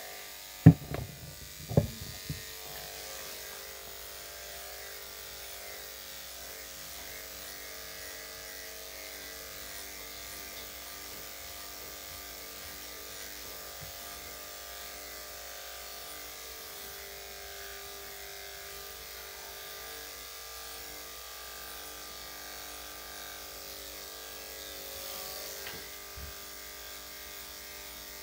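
Electric dog grooming clippers with a #7 blade running with a steady hum. A few sharp knocks come about one and two seconds in.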